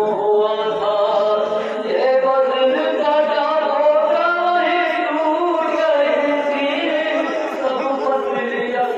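Mourners' voices chanting a Muharram lament (noha) in long, drawn-out melodic lines.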